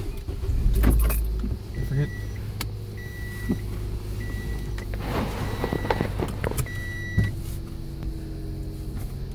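Interior of a Scion xA with its four-cylinder engine running steadily, a heavy low rumble in the first second or so. A car's electronic warning chime beeps five times, evenly spaced, with a few clicks around it.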